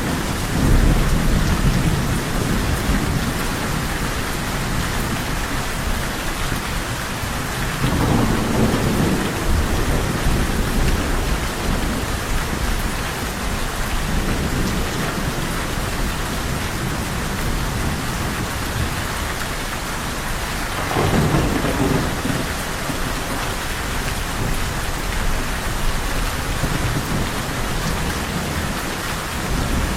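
Steady heavy rain falling, with low rolls of thunder rumbling near the start, about eight seconds in and again about twenty-one seconds in.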